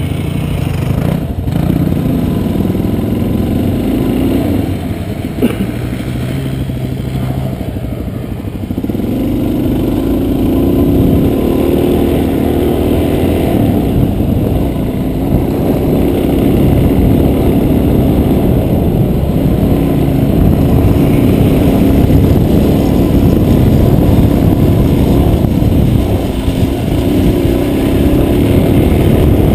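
Dual-sport motorcycle engine running under way as the bike is ridden. The revs climb about nine seconds in, and it runs harder and louder from there.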